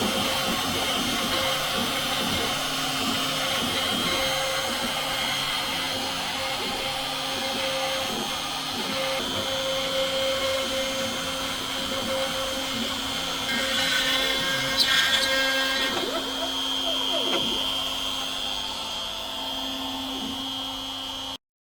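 Home-built CNC machine's motor running with a steady whine over a noisy hum. It cuts off suddenly near the end.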